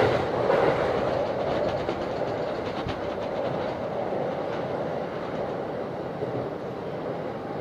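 JR Saikyo Line electric commuter train running on the rails and slowing into a station: a steady rumble of wheels on track, a few faint rail clicks, easing quieter as it brakes.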